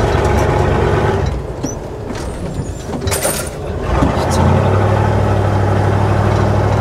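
Inside the cab of a MAN KAT1 military truck driving on a rough dirt track: the diesel engine runs, with knocks and rattles from the bumpy ground. Past the middle, the engine note comes up and holds steady and louder.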